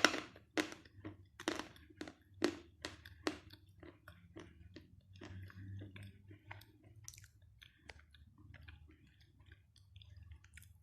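A soft piece of dry Khrapovsky chalk being bitten and chewed: sharp crunches about twice a second for the first few seconds, then quieter, softer chewing.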